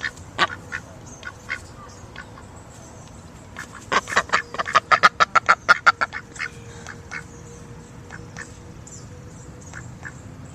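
Ducks quacking: scattered single quacks, then a fast run of loud quacks, about six a second, from about four to six seconds in.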